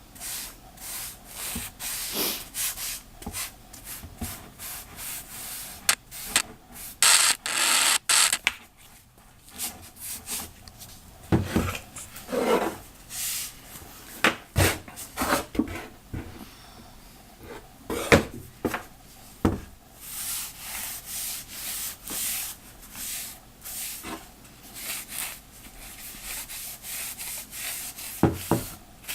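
Brush strokes rubbing linseed oil onto a wooden box: repeated short swishing scrapes of bristles on wood, with a few sharp knocks along the way.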